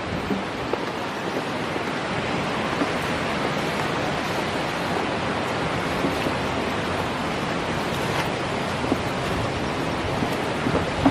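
Steady rush of flowing water, a waterfall or stream close to the microphone, an even hiss with no change in level.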